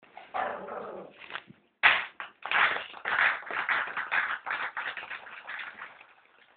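Ping pong balls bouncing and skittering on a tile floor as a small pet scrambles among them: a fast, irregular run of light clicks and taps from about two seconds in.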